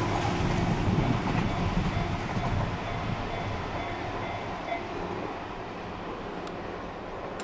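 A JR Joetsu Line train running on the rails, its wheel and track noise fading steadily as it moves away.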